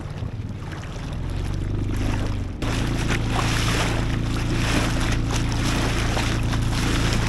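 A boat's motor hums steadily at a constant pitch under a hiss of wind and water. About two and a half seconds in it abruptly gets louder and hissier.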